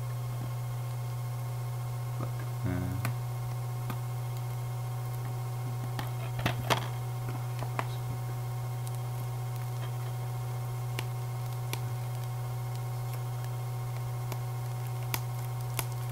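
Plastic DVD case being handled and opened: scattered sharp clicks and snaps, loudest in a cluster about six and a half seconds in, over a steady low electrical hum.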